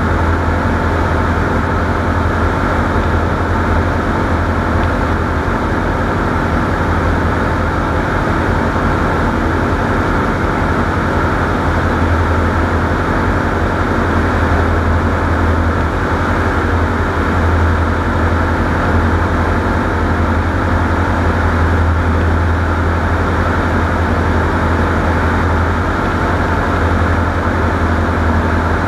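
Steady, loud low rumble of a vehicle running at constant speed, with a constant drone over it that holds even throughout.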